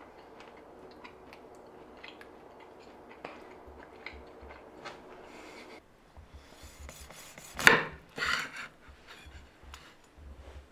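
A large kitchen knife sawing through a smoked sausage on a wooden cutting board, with two loud rasping strokes through the casing about two-thirds of the way in, among smaller clicks of the blade on the board. Before that, only faint ticks over a low steady hum.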